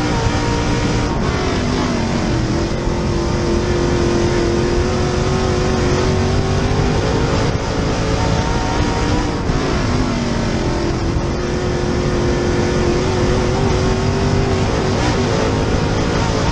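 Dirt Super Late Model race car's V8 engine running hard, heard from the in-car camera. The engine note drops twice, about two seconds in and again around ten seconds, as the driver lifts off, then climbs back each time under acceleration.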